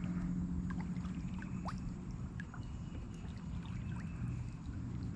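Water trickling and dripping around a kayak as it moves along, with a steady low hum underneath.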